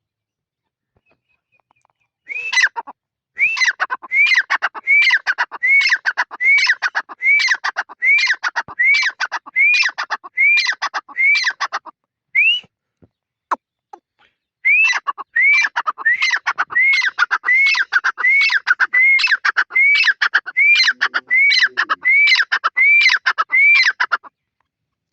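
Francolin (teetar) calling: a loud, rhythmic series of repeated arched notes, about two a second, in two long runs with a short break between them.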